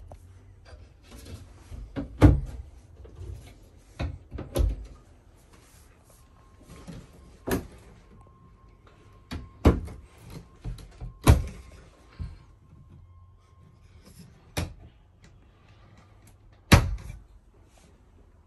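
Travel trailer cabinet doors being opened and shut: a string of sharp knocks and clicks at uneven intervals, loudest about two seconds in, in the middle and near the end.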